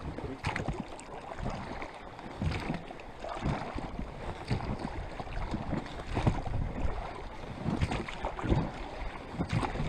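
Water splashing and knocking against a small inflatable fishing boat as it sets out, in irregular strokes about a second apart, with wind noise.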